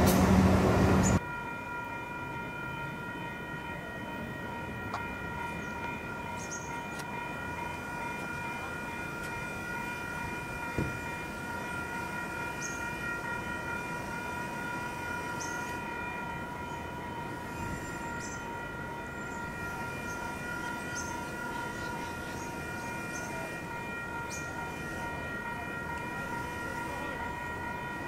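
The tail of a 3000 class diesel railcar passing close by, cut off suddenly about a second in. After it, a steady high whine of several tones held at one pitch, with a few faint short chirps.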